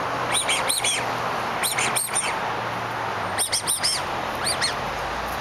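A Whippet whining in the background: four bursts of short, high-pitched squeals that rise and fall.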